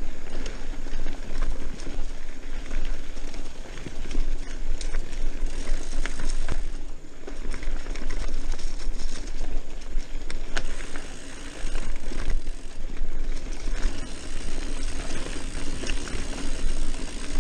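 Mountain bike rolling along a dirt singletrack trail: a steady rush of tyres on dirt and leaves, with frequent small clicks and rattles from the bike over bumps.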